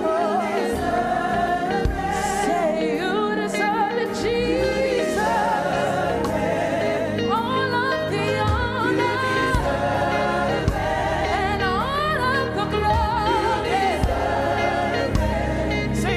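Gospel worship singing: several voices with wavering, ornamented melody lines over a live band with a steady low beat.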